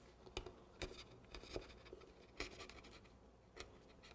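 Faint scratching and a few short sharp clicks of a blade cutting the center out of a cake board's covering.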